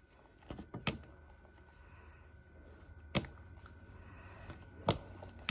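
A few sharp clicks and knocks of things being handled and set down on a table, four in all, spread across a few seconds.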